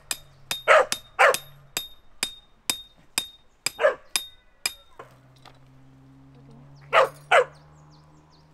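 A dog barking in short single barks, about five in all, two of them close together near the end. Sharp clicks come about twice a second through the first half.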